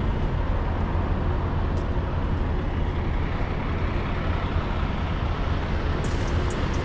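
Steady low rumble of a semi-truck, with no change in level throughout.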